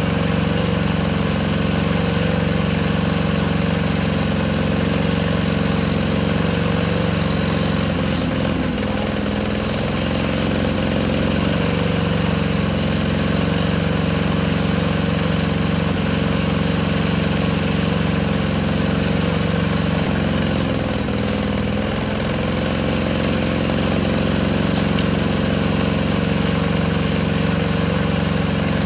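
Honda GCP160 overhead-cam lawnmower engine running steadily with ketchup in its crankcase instead of oil, smoking heavily.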